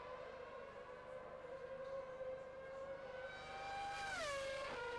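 Formula One car engine at high revs on a straight. It gives a steady high-pitched whine that rises a little as the car closes in, then drops sharply in pitch as it passes the trackside camera, about four seconds in.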